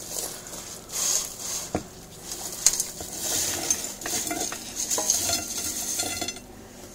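Cooked fries sliding and scraping around the ActiFry's removable nonstick pan as they are stirred and tipped out, with a few light knocks against the pan. They move freely because nothing sticks to the pan.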